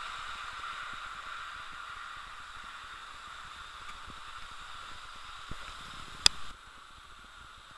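Hornby model locomotive running along the track: a steady whirring hiss from its motor and wheels that slowly fades as it draws away. A sharp click about six seconds in.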